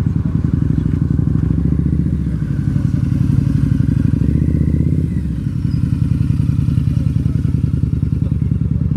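Harley-Davidson V-twin motorcycle engine running at low speed through slow, tight turns, a steady low beat that swells briefly with throttle about four seconds in.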